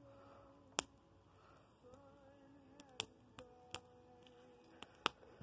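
Dead tree branches burning in a small black charcoal grill bowl: scattered sharp crackles and pops of the wood, about half a dozen, the loudest about a second in and at three seconds, over a faint background.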